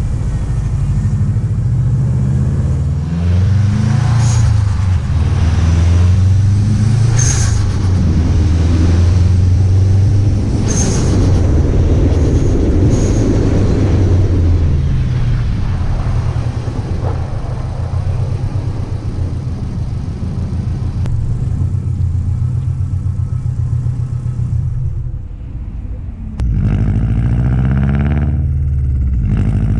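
Subaru WRX STi's turbocharged flat-four engine and exhaust under acceleration, pitch rising and falling as it revs through the gears, with several short turbo flutter chirps between about four and thirteen seconds in. The engine sound drops briefly about 25 seconds in, then revs up again.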